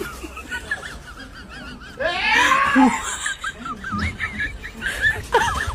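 A person laughing hard, with the loudest burst of laughter about two seconds in.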